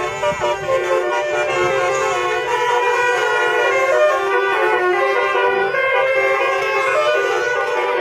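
Basuri musical air horns on several buses and cars playing melodies at once, a dense layering of steady horn tones.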